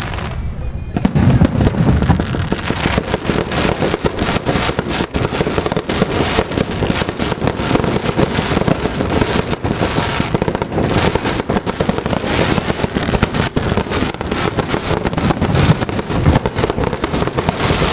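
Aerial fireworks bursting in rapid succession: a dense, unbroken run of crackling and popping, with music playing underneath.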